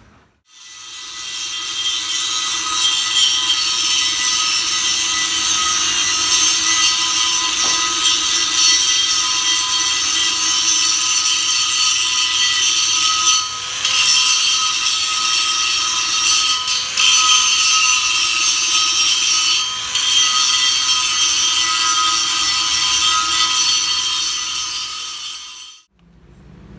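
Electric angle grinder with its disc held on the welded steel hub ring of a tractor wheel plate, grinding the weld with a steady, loud, high whine. Its level dips briefly a few times, and it cuts off abruptly shortly before the end.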